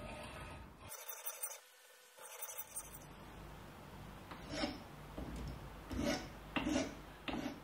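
Flat hand file stroking across the edge of a metal strip held in a bench vise: about four rasping strokes in the second half, each under half a second.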